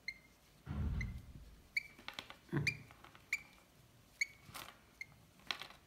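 Hand-reared lovebird chick giving short, high peeps, one roughly every half to one second. Two low rubbing thumps from handling come about a second in and again before the three-second mark.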